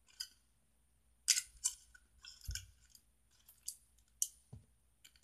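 A foil cupcake liner crinkling and clicking in short bursts as it is handled, with a soft thump about halfway through.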